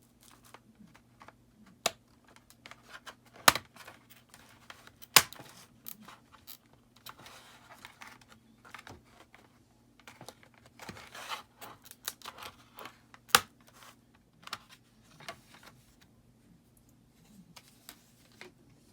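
Plastic bottom cover of a Dell 3440 laptop being pried off, its clips coming loose with scattered clicks and scraping and four loud sharp snaps spread through.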